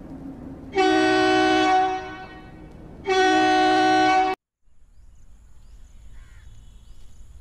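Two long blasts of a train's air horn, the second cut off abruptly, followed by a faint outdoor background.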